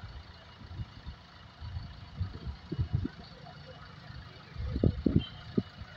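Backhoe loader's diesel engine running during demolition of a concrete building, with several groups of short, heavy low thuds about two seconds in and again near the end as concrete is knocked and broken.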